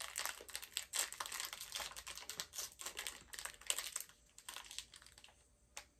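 A small foil candy wrapper crinkling as it is peeled open by hand: a quick run of tiny crackles that thins out about four seconds in, with one last click near the end.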